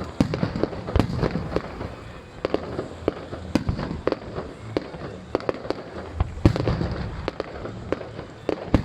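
Fireworks display: aerial shells bursting in an irregular string of sharp bangs over a continuous low rumble and crackle, with a heavier volley about six seconds in.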